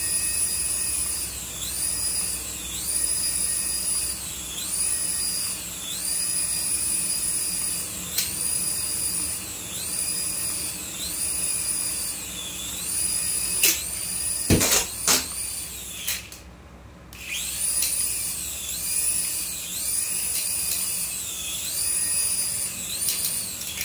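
Toy RC helicopter's small electric motors and rotors whining high, the pitch rising and falling about once a second. Around two thirds of the way in there are a few sharp knocks, then the whine cuts out for about a second and starts again.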